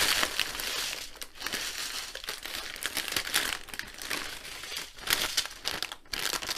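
Thin clear plastic bags crinkling as a large bag is tipped out and the small sealed packets of diamond-painting drills spilling from it are handled. Loudest in the first second, then irregular crinkles.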